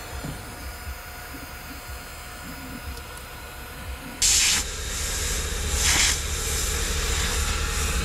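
Brigii M1 handheld vacuum cleaner running on a car's interior, a low motor hum with faint airflow hiss. About four seconds in, a sudden loud rush of suction hiss comes as the nozzle pulls in crumbs, then a second shorter surge, and the hiss stays louder afterwards.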